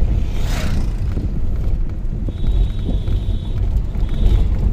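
Steady low rumble of a moving vehicle heard from on board, with road and wind noise. A brief rushing whoosh comes about half a second in, and a faint thin high tone sounds for about a second near the middle.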